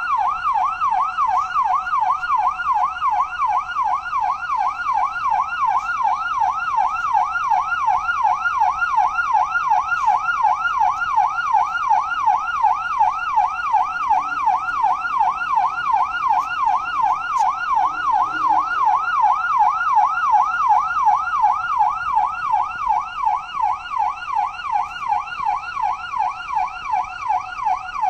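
Electronic siren in a fast yelp, a rising sweep that drops back and repeats about two to three times a second, steady and unbroken.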